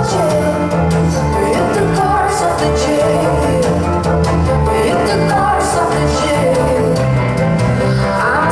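Live pop-rock band playing: a woman singing lead over electric guitar, keyboards, violin and drums, with a steady, repeating bass line underneath.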